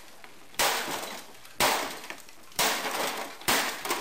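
HP DeskJet 520 inkjet printer being smashed: four heavy blows about a second apart, each followed by a short clatter of breaking plastic and loose parts.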